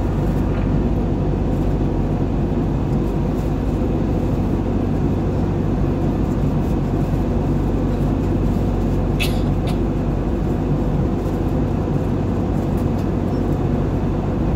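Airplane cabin noise in flight: the steady, even drone of engines and airflow, deep and unchanging. A brief faint high-pitched blip comes about nine seconds in.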